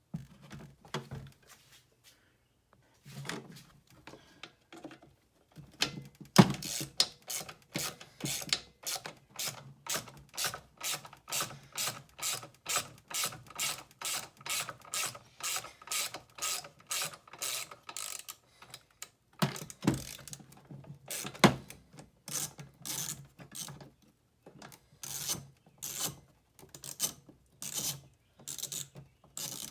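Ratchet wrench clicking in steady runs, about three clicks a second, stopping briefly now and then as fasteners are turned on a leaf blower being taken apart.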